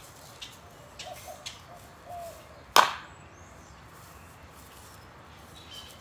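A single sharp crack about three seconds in, by far the loudest sound, over faint, sparse bird chirps.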